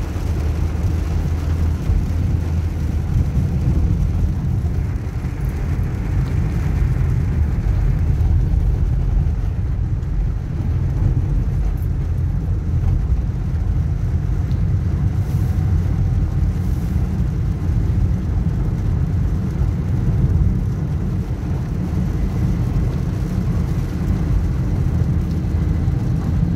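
Steady low rumble of a car driving on a wet road, heard inside the cabin: engine and tyre noise with no distinct events.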